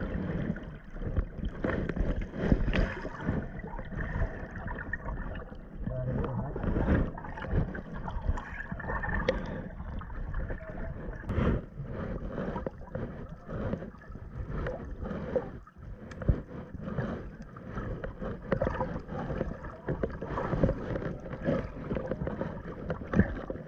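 Muffled water sloshing and bubbling heard by a camera held underwater, with many small knocks and bumps against its case.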